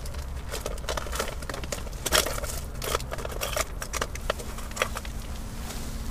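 Close-up rustling and clicking of hands handling small fishing tackle and its packaging, in irregular short bursts.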